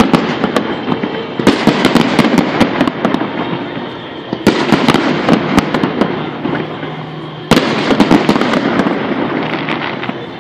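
Aerial fireworks bursting in three waves about three seconds apart, each a sudden burst followed by dense crackling pops that fade away, recorded through a phone's microphone.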